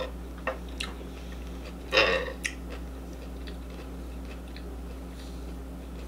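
Quiet eating sounds: a few light clicks of a fork on a plastic tray of rice, and one short, louder mouth sound about two seconds in, over a steady low hum.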